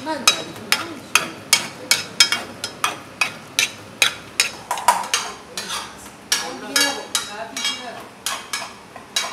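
Metal ladle repeatedly striking and scraping inside a metal bowl as it mashes boiled lamb's head meat, a sharp metallic clink about three times a second.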